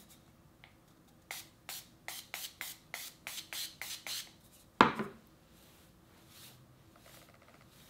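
Hair-oil spray bottle giving about a dozen short, quick spritzes, then a single louder knock.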